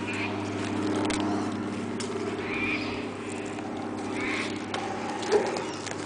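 Honeybees buzzing steadily around an old hive as it is being worked, a droning hum with a few faint clicks over it.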